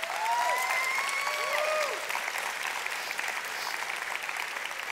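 Church congregation applauding, with a few voices whooping over the clapping in the first two seconds.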